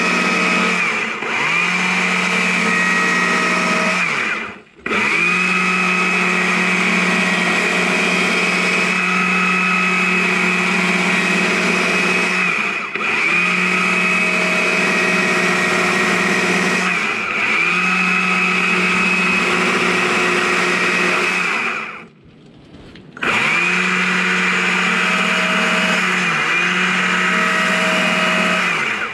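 Electric drill with a long bit boring into a log. The motor runs at one steady speed, winds down and spins back up about six times, and makes one longer stop late on.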